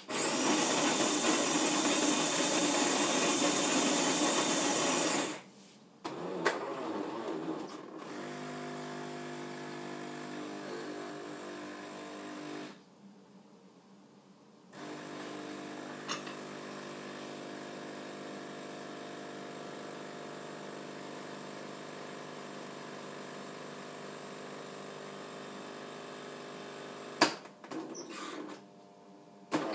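Jura Impressa S9 automatic coffee machine brewing: its grinder grinds beans loudly for about five seconds, then the pump hums steadily while pushing water through the coffee, stopping for about two seconds partway through before resuming. A few sharp clicks near the end as the cycle finishes.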